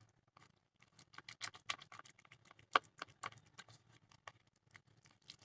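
Marble powder and Fevicol paste being stirred with a little more water: faint, irregular clicks and taps of the stirring tool against the container, one sharper tap near the middle.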